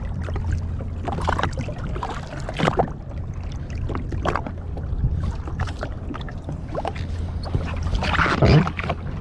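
Sea-Doo Fish Pro jet ski idling with a steady low hum, with short splashes of water against the hull.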